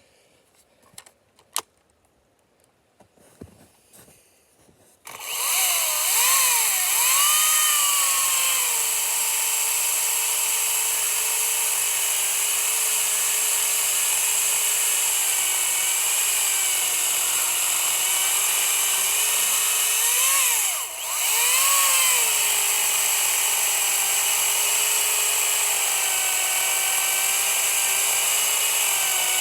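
Makita XCU06 18V brushless cordless top-handle chainsaw with a 12-inch bar, started about five seconds in and cutting into a log. It makes a steady electric whine whose pitch jumps up and then drops back as the chain bites. The whine cuts out briefly near the middle, then comes back and runs on steadily.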